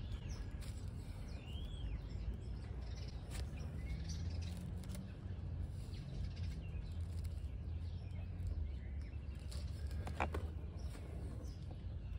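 Birds chirping faintly over a steady low rumble, with a few soft ticks and rustles.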